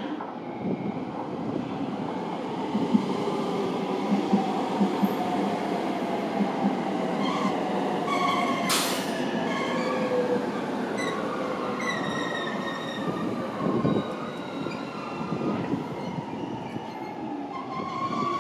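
JR West limited-express electric train moving slowly along the station platform, with a motor whine falling in pitch, wheel squeal from about halfway, and wheels clicking over rail joints. A short hiss comes about nine seconds in.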